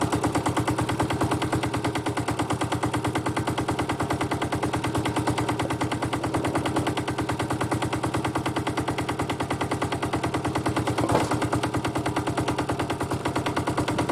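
Powerfab 125 mini digger's air-cooled diesel engine running steadily, a fast even chugging of about ten beats a second, with one brief louder sound about eleven seconds in.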